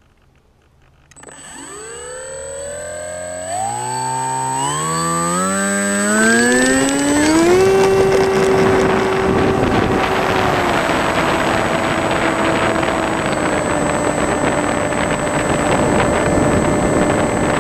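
Electric motor and propeller of a Penguin FPV model plane starting about a second in and spooling up in steps as the throttle is opened for the takeoff roll, then holding a steady high whine in the climb. A growing rush of wind on the onboard microphone comes in under it.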